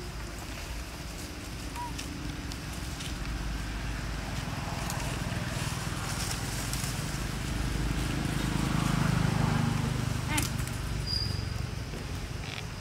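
Outdoor ambience with a steady low rumble and faint voices, swelling around the middle, with a couple of sharp clicks near the end.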